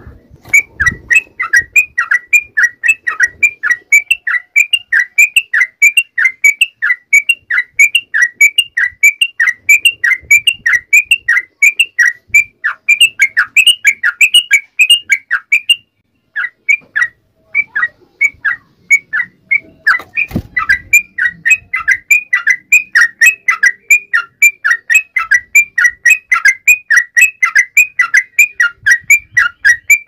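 Yellow-vented bulbul (trucuk) calling in a fast, chattering run of short whistled notes, several a second. The run thins to scattered notes for a few seconds past the middle, then picks up again after a single low thump.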